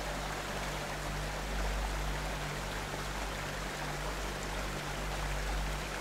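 Steady rushing water, like a river or stream, with no music over it.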